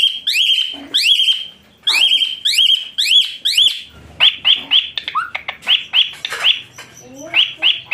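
A bird chirping over and over: loud, quick calls that each sweep upward and turn over, about two to three a second, with a short pause near two seconds in.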